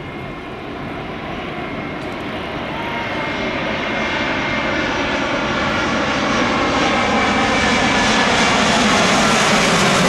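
Airbus A320neo's Pratt & Whitney PW1100G geared turbofan engines on final approach to land, growing steadily louder as the jet comes closer: a whine of several steady tones over a rush of noise.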